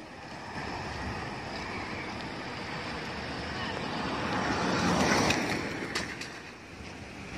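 A car driving through a flooded street, its tyres pushing a rushing wash of floodwater that swells about five seconds in and then fades.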